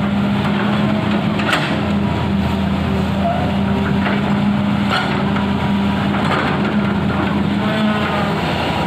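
Hitachi excavator's diesel engine running steadily under work, with a couple of faint knocks.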